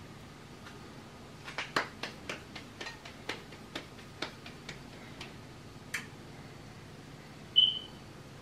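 Hands patting and pressing a ball of masa dough flat into a gordita: a run of light, irregular slaps, several a second, from about a second and a half in until about six seconds. Near the end a single short, high ping, the loudest sound.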